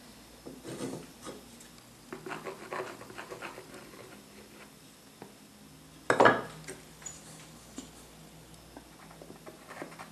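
Cut wooden vise parts handled and knocked lightly on a wooden workbench, a string of small clicks and clatters, with one louder knock about six seconds in.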